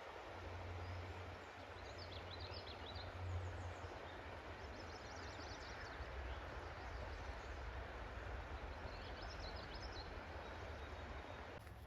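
Outdoor ambience: a steady rushing noise with a low rumble underneath, and short bursts of high bird chirping about five times.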